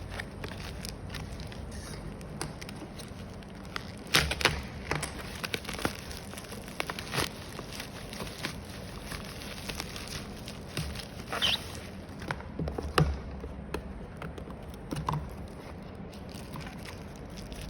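Handling of a product box and its packaging: scattered clicks, taps and knocks, several of them sharp, over a steady hiss.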